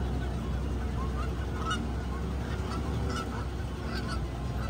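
A flock of African lesser flamingos honking, many short calls a second, over the low steady rumble of the safari truck's engine.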